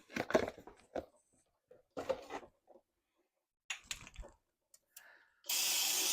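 Light clicks and knocks of metal parts being handled during a tractor oil and filter change, then near the end a sudden loud, steady rushing hiss.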